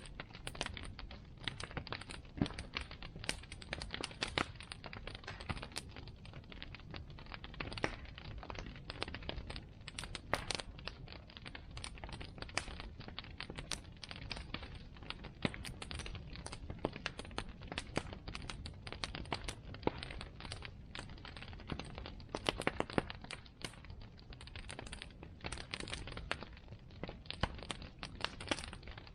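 Bonfire crackling: burning wood giving off a dense, irregular stream of sharp pops and snaps over a steady low rush of flame.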